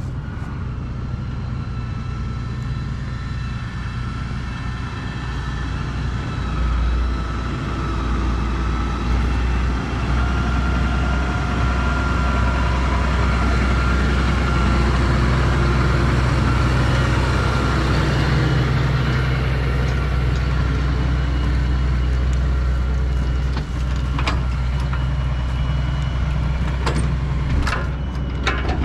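Farm tractor diesel engines running steadily, with a second tractor and silage wagon pulling up close so the engine noise grows louder through the middle. A few sharp metallic clanks come near the end.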